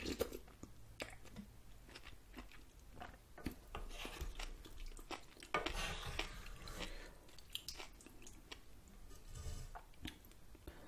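Close-miked chewing of ramen noodle soup with melted cheese, with many small wet mouth clicks and a denser, noisier stretch about halfway through.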